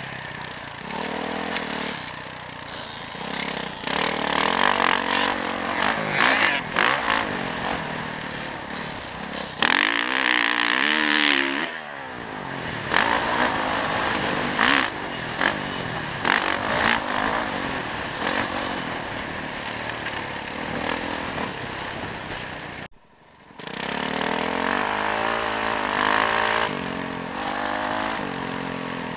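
Dirt bike engine heard from the rider's own motocross bike, revving up and down as the throttle opens and closes through turns and jumps. The sound drops out sharply for under a second about three-quarters of the way through, then the engine picks up again.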